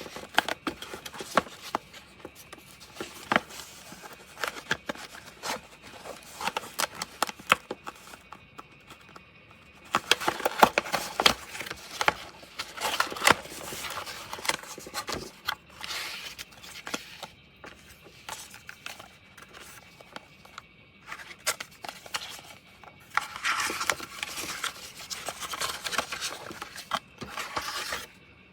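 Objects being handled: irregular scraping, rubbing and rustling with many sharp clicks, coming in spells, the busiest in the middle and near the end, as when a small device and its packaging are unpacked and handled.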